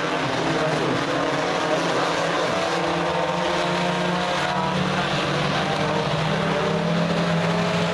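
Engines of several U-car dirt-track race cars running together on the oval, a steady drone with overlapping pitches that waver as the cars circle.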